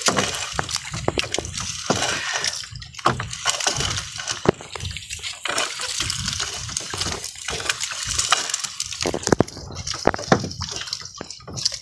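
Water splashing and dripping as a wet fishing net is hauled by hand over a boat's side, a continuous splashy wash broken by many irregular sharp drips and splats.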